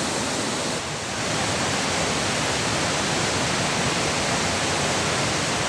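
A river swollen by heavy rain, rushing fast over rocks: a steady, loud rush of water, dipping briefly about a second in.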